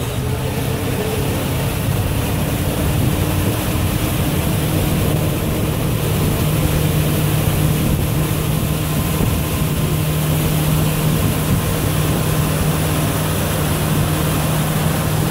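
Pontoon boat's engine running steadily under way, a low hum that gets a little louder in the first couple of seconds, over a steady rush of wind and water.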